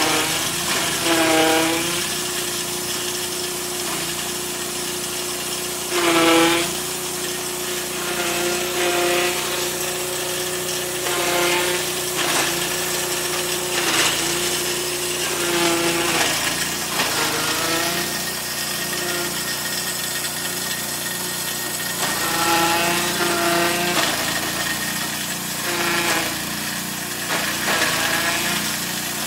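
Small petrol engine driving a 2-in-1 chaff cutter and grain mill, chopping green stalks while grinding grain at the same time. The engine's note dips briefly again and again as it labours under the load of the feed.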